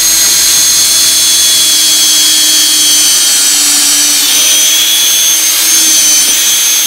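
Cordless drill running steadily at high speed, boring a pilot hole into a block of oak; the motor's pitch dips a little about midway as the bit loads up.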